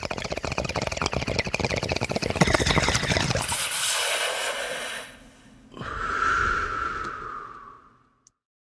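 Intro sound effect for a logo reveal: a crackling, rushing swell builds for about three seconds and thins into a hiss. It dips about five seconds in, then a second swell carries a whistling tone that slides down and fades out.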